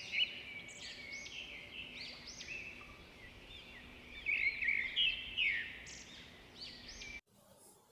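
Birdsong-like chirps and warbles in quick, high-pitched repeated phrases, played through a Xiaomi smartphone's loudspeaker. The sound cuts off suddenly near the end.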